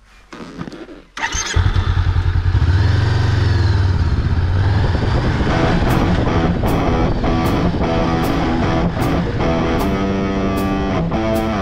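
A Honda CB500X's parallel-twin engine catches about a second in and revs up and back down. Rock music with electric guitar and a steady beat comes in about halfway through.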